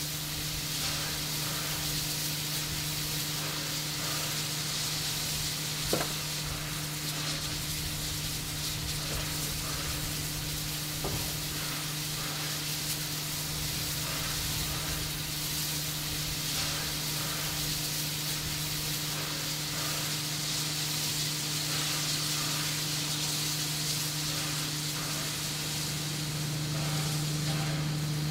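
Steady hiss of steam escaping from a standing R-class Hudson steam locomotive, with a constant low hum beneath it. There is a single sharp click about six seconds in.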